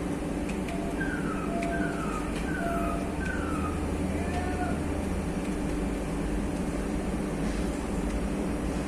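Komori System 40 web offset printing press running with a steady mechanical hum. Over it, a short falling electronic beep repeats about every 0.7 seconds and stops about halfway through, typical of a press's start-up warning signal.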